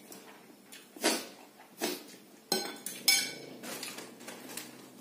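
Metal fork and spoon clinking and scraping against a ceramic plate of noodles, with four sharp clinks in the first three seconds, the last one ringing briefly.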